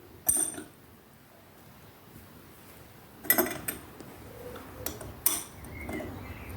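Steel spanner clinking against a nut and its thread as it is fitted and worked to loosen the nut: a sharp metallic clink right at the start, then three more in the second half.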